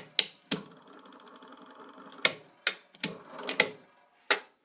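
Washing machine's cycle controls being clicked, about eight sharp separate clicks with faint fast ticking between the first few, as the machine is set to a spin-only cycle.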